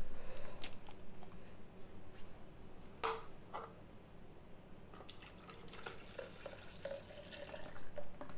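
Water dripping and trickling into a container, with a few light clicks and knocks.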